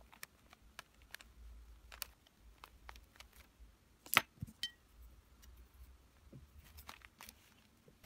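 Faint scattered clicks and light taps of small handling noises while painting, with one sharper click about four seconds in.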